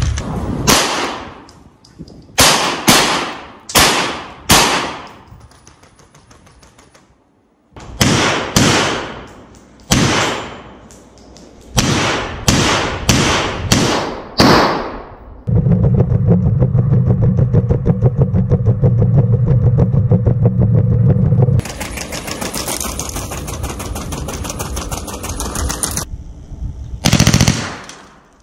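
Machine gun mounted on a robot dog firing single shots and short bursts at uneven intervals, each crack trailing off in an echo. From about fifteen seconds in, a loud steady sound runs unbroken for roughly ten seconds, and two more shots come near the end.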